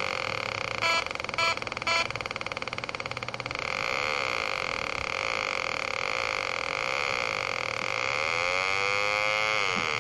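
Electronic engine sound effect from a children's battery-powered ride-on toy ATV: a buzzy, rapidly pulsing drone with three short beeps about a second in, and a rev that rises and falls in pitch near the end.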